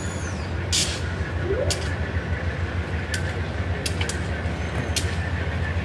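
Amtrak passenger train rolling past: a steady low rumble with sharp, high-pitched ticks at uneven intervals of about a second.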